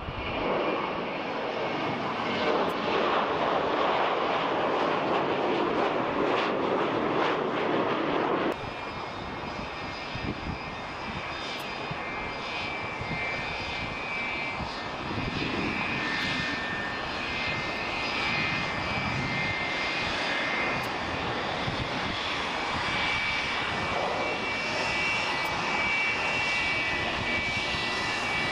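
MD-80-series jetliner climbing out after takeoff, a steady jet roar. About eight seconds in it cuts abruptly to a Delta MD-80-series jet taxiing, its rear-mounted engines giving a quieter, steady high-pitched whine.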